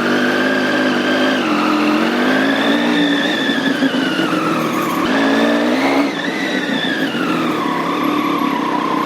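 Triumph Street Triple 765 S inline-three engine breathing through a new Arrow aftermarket exhaust, ridden at low speed. The engine note rises and falls with the throttle, jumps up sharply about five seconds in, then settles to a steady note near the end.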